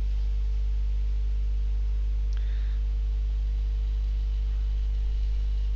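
Steady low electrical hum, mains hum picked up by the recording microphone, with a faint click about two and a half seconds in.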